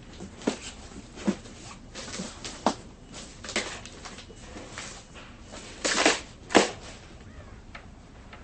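A few sharp knocks and clicks at uneven intervals, like objects being handled and set down, with the loudest two close together about six seconds in.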